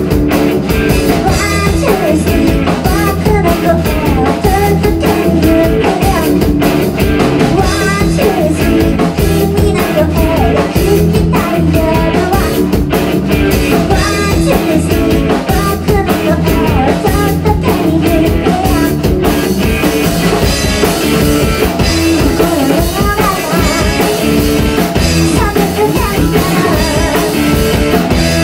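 Live rock band playing: a woman singing lead over electric guitar, bass and a drum kit.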